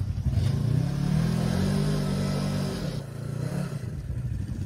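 Polaris RZR 1000 side-by-side engine revving as it works out of a deep rut: the pitch climbs about half a second in, holds for around two seconds, then drops back about three seconds in. A second engine runs low underneath.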